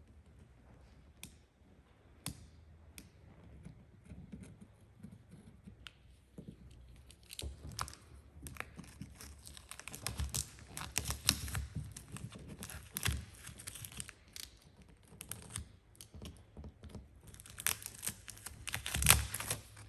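Gloss black vinyl wrap film being handled and worked: irregular crinkling and crackling with sharp clicks, sparse at first and busier from about a third of the way in, loudest near the end.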